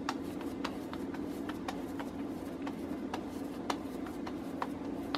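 Hands pressing and patting a ball of mashed potato closed around its filling, giving faint, irregular little clicks and pats over a steady low hum.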